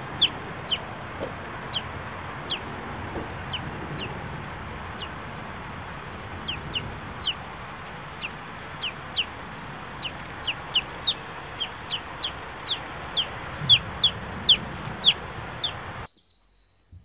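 A baby chick peeping over and over: short, high, falling peeps, one or two a second, over a steady hiss. The sound cuts off suddenly near the end.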